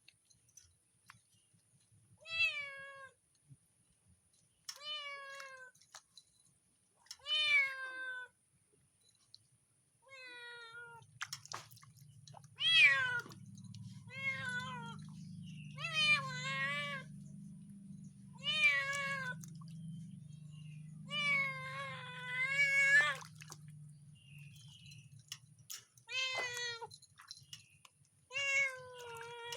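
Domestic cat meowing over and over, about a dozen meows that each fall in pitch, from a cat being bathed.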